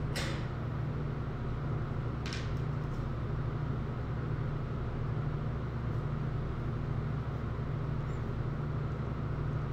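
Steady low mechanical hum with a faint hiss: the room tone of a working kitchen's machinery or ventilation. Two short faint noises stand out, one at the very start and one about two seconds in.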